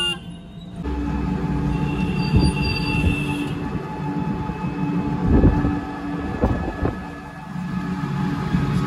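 Electric rickshaw on the move: a steady rumble of the ride with thin, steady whining tones over it and a few short knocks from bumps in the road.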